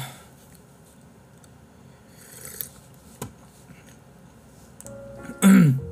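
Quiet room with a few small rustles and a single click. Near the end background music comes in, with one short loud sound falling in pitch over it.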